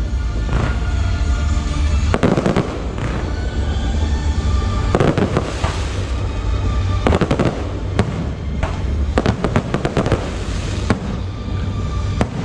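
Aerial firework shells bursting overhead: several loud bursts in succession, with sharp crackling pops between them, over a steady low rumble.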